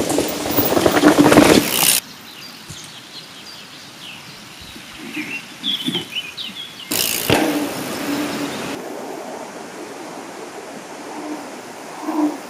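Mountain bike tyres rolling over a gravel forest trail, with two loud stretches of rolling noise as the bike passes close. Birds chirp in the quieter stretch between them.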